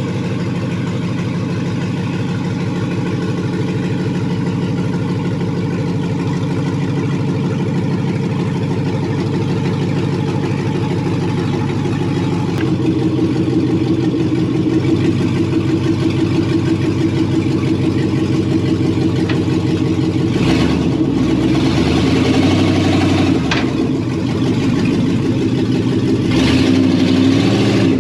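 Gen 3 6.0-litre LS V8 in a 1957 Chevy pickup running at low speed as the truck pulls out and rolls up close. Its steady low exhaust pulse steps up about halfway through and grows louder toward the end, with a rougher noise over it in the last few seconds.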